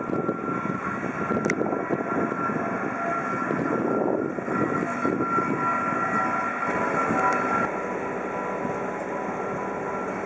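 Bobcat skid-steer loader's diesel engine running with a steady high whine over its drone. The sound drops to a quieter, even level about eight seconds in.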